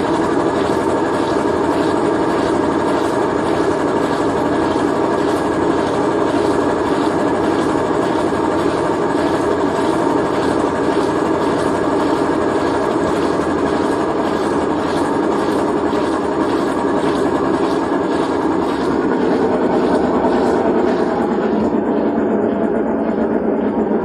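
Consul Cargo 8 kg top-load washing machine in its spin cycle with a load of blankets: the drum spins at speed with a loud, steady running noise and a faint regular beat.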